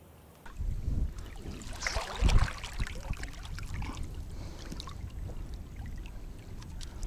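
Shallow river water splashing and sloshing over a low rumble. The sound starts abruptly about half a second in and peaks with a louder splash about two seconds in.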